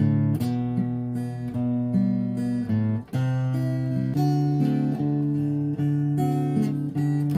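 Acoustic guitar playing slow relaxing music, plucked notes and chords ringing on into one another, with a brief pause about three seconds in.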